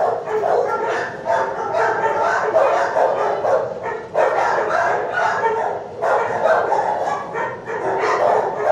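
Many dogs barking and yelping at once in an animal shelter's kennels, an unbroken din of overlapping barks.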